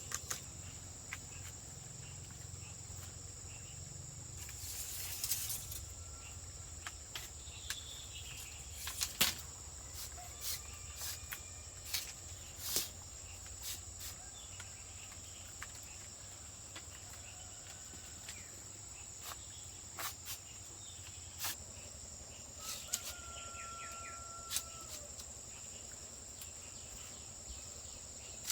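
Insects, likely crickets, droning steadily in a high even tone, with irregular sharp knocks and clicks scattered through and a few brief thin bird-like calls near the end.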